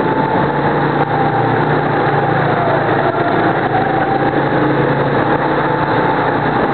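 Go-kart engine running steadily at speed, heard from a camera on board the kart, with a continuous whine that sags slightly in pitch midway and comes back up.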